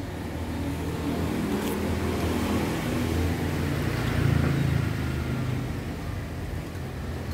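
A motor vehicle's engine driving past on the street, growing louder to a peak about halfway through, then fading.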